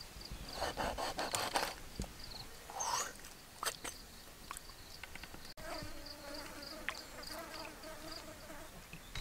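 Quick run of sharp clicks and scrapes of a cleaver working fish on a wooden chopping board near the start, over a faint, steady pulsing insect chirp; a low wavering hum comes in during the second half.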